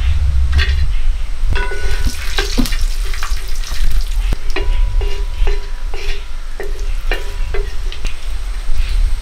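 Cashew nuts frying in ghee in a wide metal pan, with a flat spatula stirring and scraping against the pan. Through the middle the strokes come about twice a second, each with a short metallic ring, over a steady low rumble.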